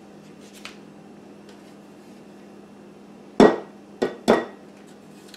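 Metal box grater knocked three times against the rim of a glass mixing bowl, each a sharp knock with a short metallic ring, the last two close together, shaking grated butter off the grater.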